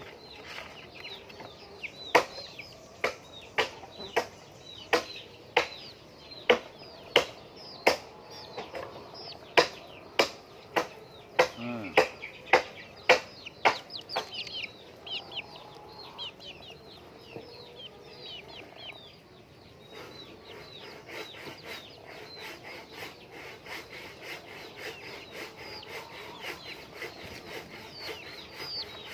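Laying hens clucking and calling in many short, high, falling notes. Over the calls, for the first half, comes a loud run of sharp knocks about one and a half a second; they then stop and only the hens are heard.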